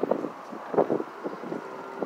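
Distant fireworks popping and crackling irregularly, a few bangs a second, the strongest just under a second in, with wind noise on the microphone.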